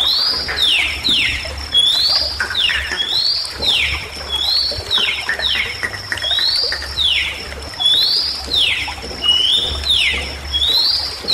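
Bali myna (Bali starling) song: a short rising whistle followed by two or three quick downward-sweeping whistled notes, repeated about every second and a quarter in a steady loop.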